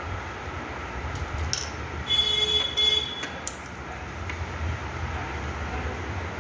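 Steady low background rumble of road traffic, with a horn-like held tone sounding for about a second about two seconds in, and a few light clicks.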